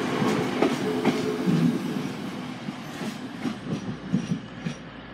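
Class 185 diesel multiple unit passing over a level crossing, its wheels clicking over the rail joints. The sound fades and the clicks thin out as the train moves away.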